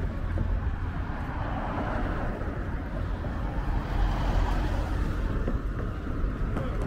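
Steady road-traffic noise: vehicles running with a low rumble under an even wash of city sound.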